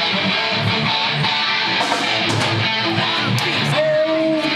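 Live band playing loud, electric guitar over drums, with sharp cymbal hits about two seconds in and again past the three-second mark, and a held guitar note near the end.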